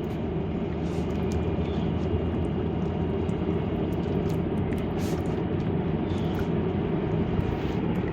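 Mr. Bubble Magic Bath Crackles fizzing in water, a steady stream of small snaps and pops over a low steady rumble.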